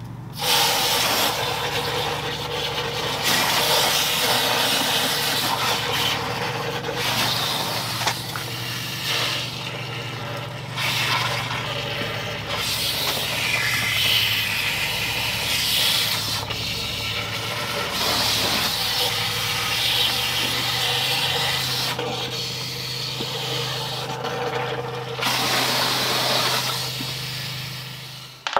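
Water from a hose rushing through the water jacket of a 1937 Ford flathead V8 block and splashing out into a plastic bin, flushing out rust and deposits. The rushing hiss rises and falls in level, with a steady low hum underneath.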